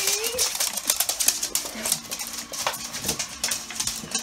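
Claws of two small dogs clicking and skittering rapidly on a laminate floor as they scuffle, with a short rising whine near the start.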